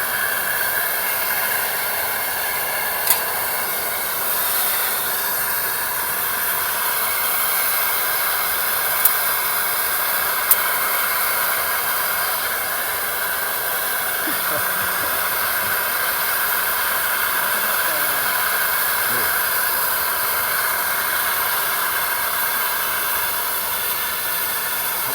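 Steady hiss throughout, with three sharp clicks about three, nine and ten and a half seconds in.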